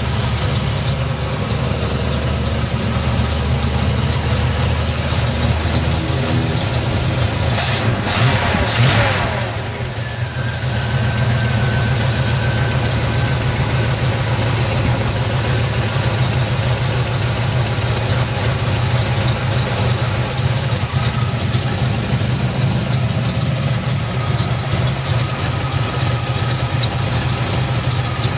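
Newly built 350 small-block Chevrolet V8 with four-bolt mains, still in break-in, running steadily at idle. About eight seconds in it is briefly revved, then the revs fall back to idle.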